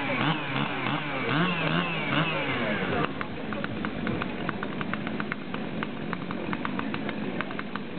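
Chainsaw delimbing, cutting off wooden poles set into a log: the engine revs up and down with each cut for about three seconds, then runs steadier at a lower speed.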